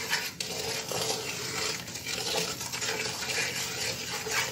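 A wooden spatula stirring and scraping a thick paste of roasting wheat flour, ghee and sugar around a metal pan, in repeated strokes.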